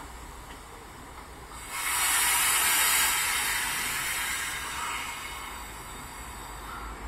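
Compressed air hissing out of a standing Vivalto double-deck commuter train's pneumatic brake system as the brakes release. The hiss starts suddenly about two seconds in, is loudest for about a second, then fades away.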